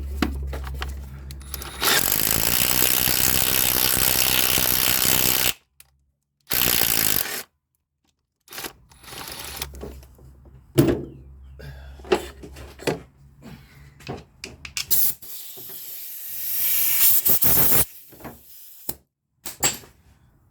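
Impact wrench running a bolt into a cross-threaded starter bolt hole to chase out the damaged threads: one run of about three and a half seconds starting about two seconds in, a short burst just after, and another run near the end, with knocks and clatter of tools in between.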